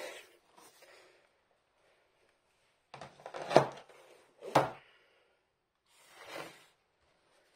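Two sharp knocks of a hard plastic canvas tube handled on a wooden tabletop, a second apart, followed by a soft rub as it is moved.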